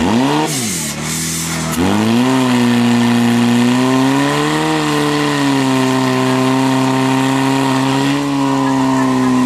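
Small engine of a portable fire pump revving: a brief rise and fall at the start, then revving up about two seconds in and held at high speed with a slight waver, driving water out through the attack hoses to the targets.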